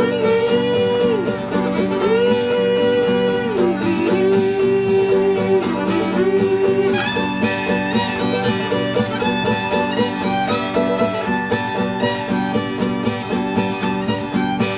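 Instrumental background music in a bluegrass style: a fiddle plays long notes that slide up and down, over a steady picked string accompaniment, and the tune turns busier about seven seconds in.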